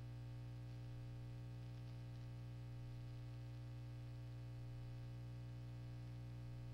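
Steady electrical hum with a buzzy stack of overtones, unchanging throughout and with nothing else over it: mains hum on an archival soundtrack.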